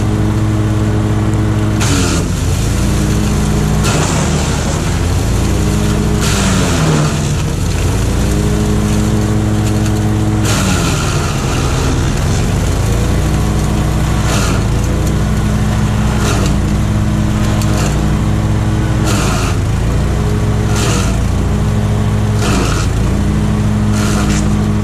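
Wood chipper driven by a Honda GX 390 single-cylinder four-stroke engine, chipping branches. The engine runs steadily and sags in pitch about a dozen times as branches are drawn in and shredded, each time with a burst of cracking, chipping wood; the longest loads come about six and ten seconds in.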